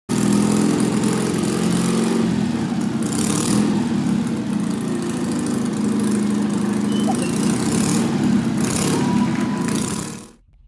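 The Desert Camel's Citroën 2CV air-cooled flat-twin engine running loudly on the scrap-built motorbike, its pitch wavering a little. It fades out shortly before the end.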